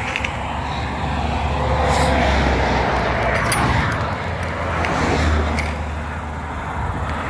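Road traffic passing: a steady low rumble that swells twice, with a few light clicks over it.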